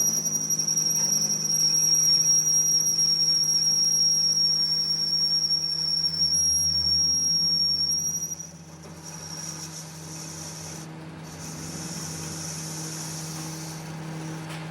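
Metalworking machine in a workshop: a steady high-pitched squeal over a low machine hum. About eight seconds in the squeal stops and the level drops, leaving a softer hiss with the hum running on.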